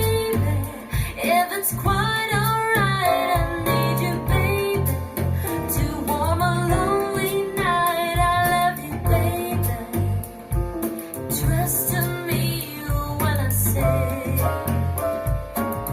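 A pop song with singing, guitar and a strong bass line, played through a Polk Legend L200 bookshelf loudspeaker.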